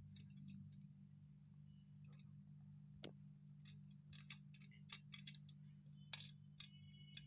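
Small plastic building bricks and toy wheels clicking and tapping as they are picked up, set down and pressed together. Scattered light clicks come thicker in the second half, over a steady low hum.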